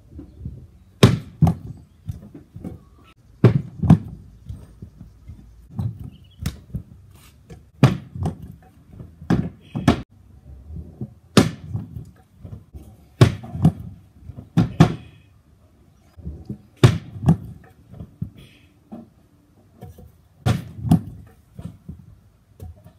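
Stunt scooter clattering and knocking on concrete and thumping onto a mattress during flip attempts: a run of sharp knocks, often in pairs, every second or two.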